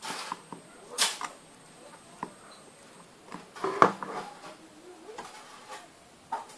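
Handling noise from a circuit board being turned over and moved about on a wooden table: scattered clicks and light taps, with a louder knock just under four seconds in.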